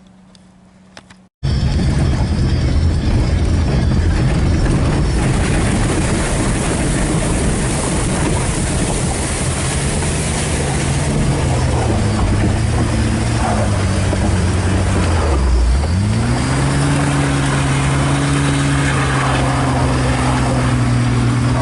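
A vehicle's engine running under way, its note steady, then dropping about 15 seconds in and climbing back up to hold at a higher pitch, over a steady noisy rush.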